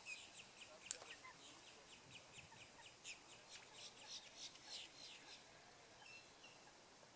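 A bird calling in a rapid, faint series of short high chirps, about three a second, that stops about five seconds in. A single sharp click comes about a second in.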